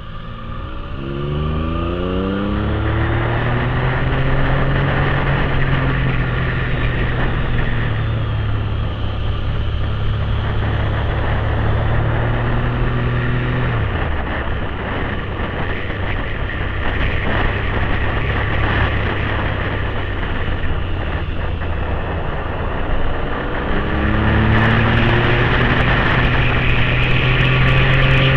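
Motorcycle engine heard from on board, its note rising as the bike accelerates over the first few seconds, then holding steady at speed. It eases off about halfway through and picks up again near the end, with steady wind rush throughout.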